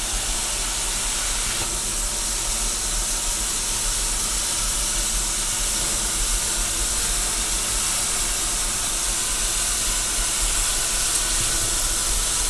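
Walt Disney World Railroad steam locomotive standing still, letting off a steady, even hiss of escaping steam.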